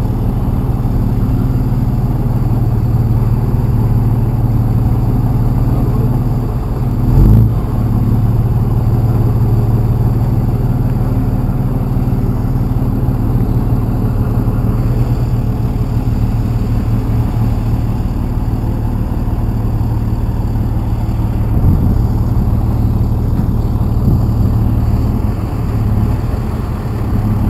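Dodge Ram dually pickup's engine held at steady high revs in a burnout, the rear tyres spinning on the concrete. A loud thump about seven seconds in.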